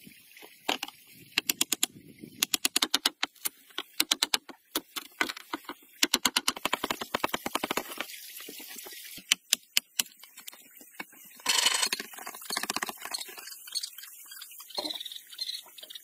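Runs of rapid, sharp knocks from hand tools striking wood, with a short rasping burst a little past the middle and scattered single knocks after it.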